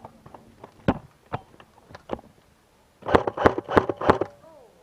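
Airsoft gun firing: a few single sharp shots, then a quick string of about six about three seconds in.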